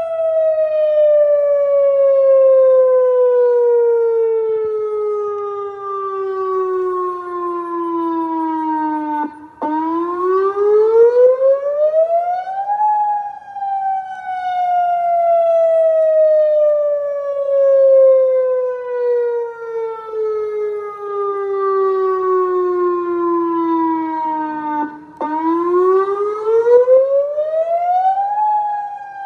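Outdoor tornado warning siren sounding a wail during a test. Its pitch slides slowly down for about nine seconds, then climbs back up over about three seconds, a cycle heard twice, and the loudness swells and fades as it goes.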